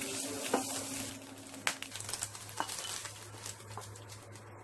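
Diced smoked turkey sizzling in a frying pan over a steady low hum, being fried until crisp. The sizzle fades about two seconds in, giving way to scattered light taps and clicks as the fried pieces are tipped from the pan into a glass bowl.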